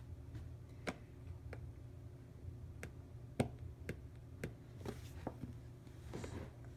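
A baby's hands tapping and shifting on a hard plastic toy: about ten light, scattered clicks over a low steady hum, the sharpest a little past the middle.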